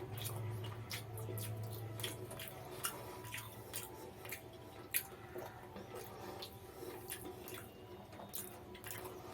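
Wet chewing and mouth smacks of a person eating mutton biryani with raita: many small irregular clicks and squelches, the sharpest about five seconds in. A low steady hum underlies the first two seconds.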